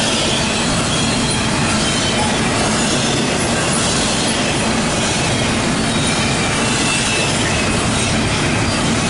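CSX Q138 intermodal and autorack freight train's cars rolling past at speed: a steady, loud rumble of steel wheels on rail, with faint high wheel squeals now and then.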